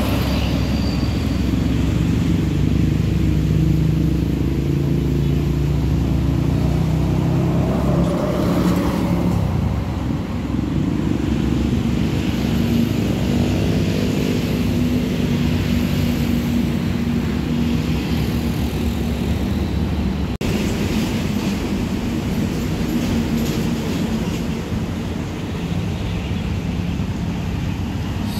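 Road traffic led by the diesel engines of large coach buses running past and approaching, a steady engine drone with tyre noise.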